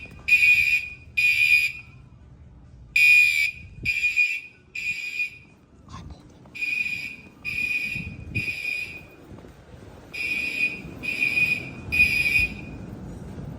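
Gentex Commander horn strobes of a fire alarm system sounding the temporal-three evacuation pattern: three short blasts of a buzzy, high-pitched horn tone, a pause of about a second and a half, then three more, over and over. This is the fire alarm system under test.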